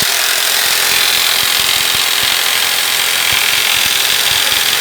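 Yojimbo 600-watt electric mini jigsaw running steadily at full speed, its blade sawing along a cut line.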